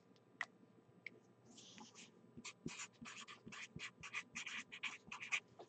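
Permanent marker writing: a faint, quick run of short strokes, starting about a second and a half in.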